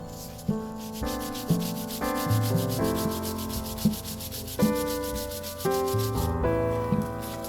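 Sandpaper rubbed back and forth by hand over ebony wood in rapid, even strokes, pausing about six seconds in and starting again near the end. Background music plays underneath.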